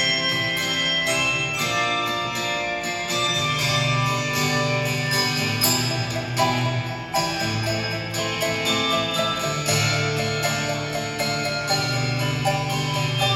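Handbell choir playing a slow hymn-like piece: many bells struck one after another, their tones ringing on and overlapping above steadier low notes.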